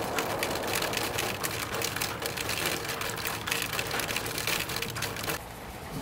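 Rain falling steadily, a dense, fast patter of drops that drops off about five seconds in.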